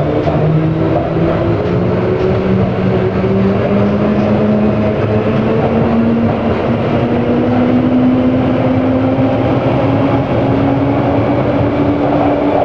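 London Underground 1967 Stock train accelerating out of a station, heard from inside the car: the electric traction motors' whine climbs slowly and steadily in pitch over the rumble of the wheels on the rails.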